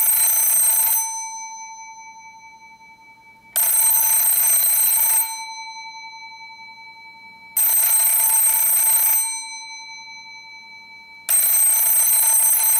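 Western Electric F1A external telephone ringer on its low setting, its clapper striking just one of its two gongs: rings in bursts of about a second and a half, repeating about every four seconds, with the gong's tone dying away between rings.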